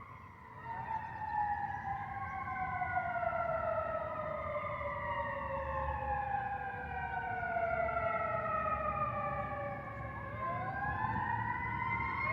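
Several fire sirens wailing at once at different pitches, overlapping: each winds up quickly, then slides slowly down over several seconds, and another winds up about ten seconds in. They are sounding a fire call, which the recorder says is a false alarm.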